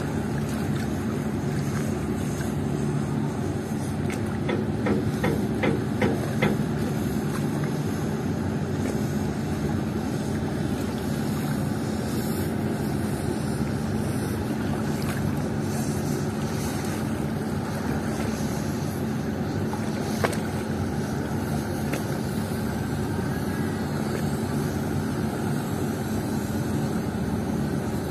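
Steady drone of a boat's engine with the wash of water and wind. A brief run of short, rapid pulses rises over it about four to six seconds in.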